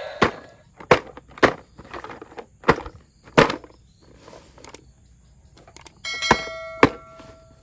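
Plastic toy parts and packaging being handled, giving a string of sharp clicks and knocks about half a second apart. About six seconds in, a steady electronic-sounding tone of several pitches starts, with two more knocks over it.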